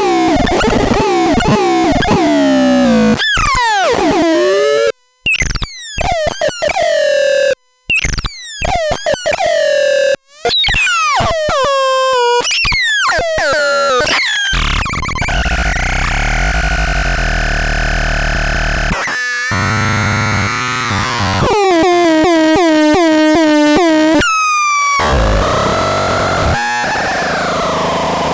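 Rubbish Synth 1 synthesizer making chaotic electronic tones. It plays rapid falling pitch sweeps and choppy notes that cut off abruptly, then a buzzy drone with a low rumble about halfway through, then another run of fast repeating downward sweeps.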